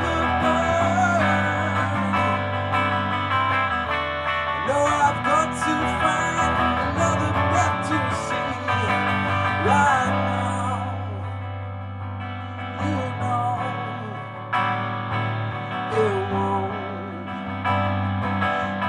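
A man singing while strumming a black archtop guitar in a live singer-songwriter performance. The accompaniment thins and quietens for a few seconds past the middle, then picks up again.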